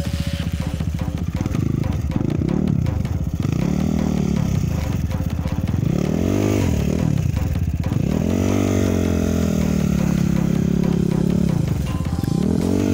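Enduro motorcycle engine revving up and falling back again and again, with about five rises in pitch. Near the end it is held high for a few seconds as the bike is worked through deep ground.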